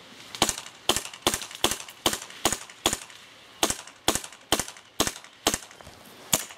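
Airsoft guns firing single shots as sharp cracks, about a dozen at two to three a second, with a short pause near the middle.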